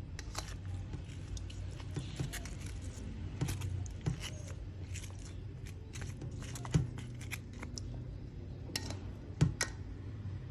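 Scattered light metallic clinks and taps, more than a dozen at irregular intervals, the loudest about two-thirds of the way in and near the end, over a steady low hum.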